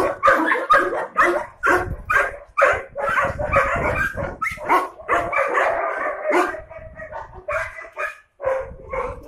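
Several dogs barking over and over, their barks overlapping, with a brief lull about eight seconds in before the barking picks up again.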